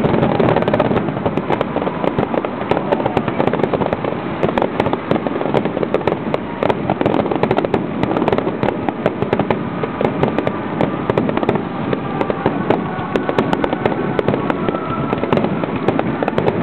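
Fireworks display going off in a dense, continuous barrage of crackling pops, many a second, over a steady rushing background noise.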